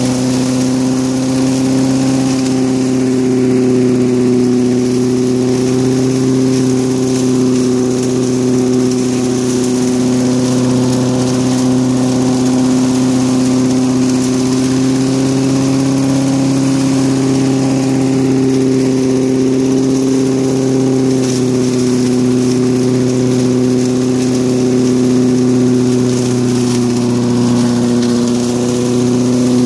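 Push lawnmower's small engine running steadily, spinning an impeller fitted in place of the blade inside a shroud, so the mower works as a centrifugal leaf blower pushing air out of a side chute. The engine's steady hum holds an even pitch with only slight wavering.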